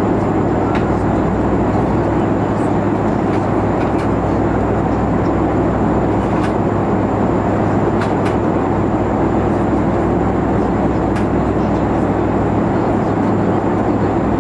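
Steady cabin noise of a Boeing 737-500 in flight: an even rush of airflow over a low drone from its CFM56 engines, with a few faint clicks.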